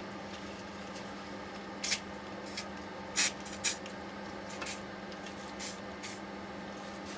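Tools and metal parts being handled while a steering rack is taken apart: a run of short, irregular scrapes and clicks, about seven over four seconds, over a steady low hum.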